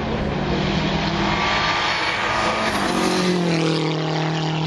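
Hill-climb competition cars' engines running hard up the course. The engine note changes about three seconds in to a new steady pitch, a different car at a cut.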